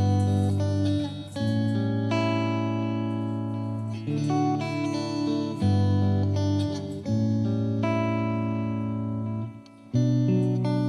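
Background instrumental music: sustained chords that change every second or two, with a brief drop in level near the end.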